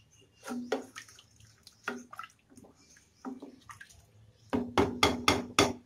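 A wooden spatula stirring a watery vegetable mixture in a steel pressure cooker: liquid sloshing, with irregular knocks of the spatula against the pot. In the last second and a half the knocks come fast and loud, about five a second.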